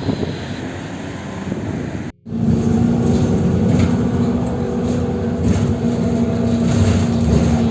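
Street traffic noise, then after a sudden break about two seconds in, a steady loud vehicle drone with a constant low hum.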